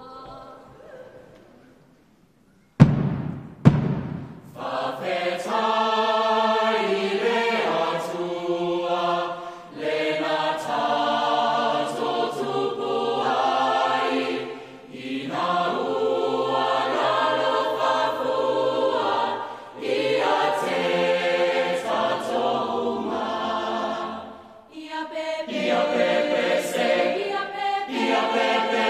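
A mixed choir singing a traditional Samoan song in harmony, in phrases broken by short pauses. The singing begins just after two loud thumps about three seconds in.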